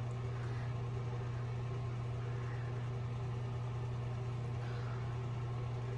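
A steady low hum of background machine noise, unchanging throughout, with no other distinct sound.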